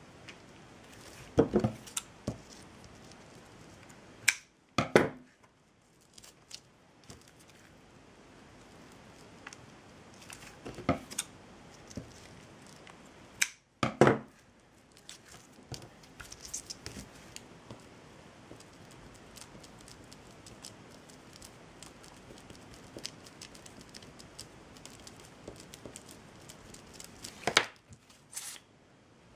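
Scattered sharp clicks and rustles of hands working jute twine at a craft table, with a few louder snaps about a second and a half in, around five seconds, around fourteen seconds and near the end.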